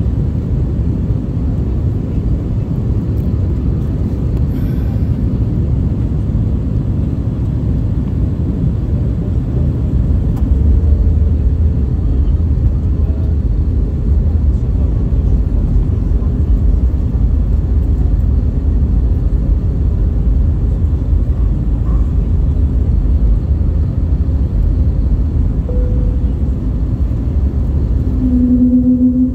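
Steady cabin rumble of an Airbus A321neo on approach, heard inside the cabin by the wing: Pratt & Whitney PW1100G engines and airflow. The low rumble grows louder about ten seconds in, and a brief low hum comes in near the end.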